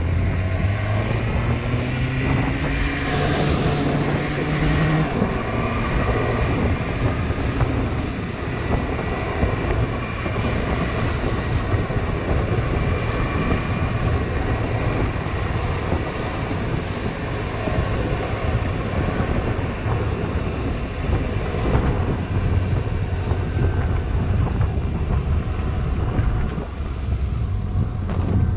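Suzuki GSX-S750's inline-four engine pulling away, its pitch rising over the first few seconds, then running steadily at city speed under a constant rush of wind on the helmet-mounted camera's microphone.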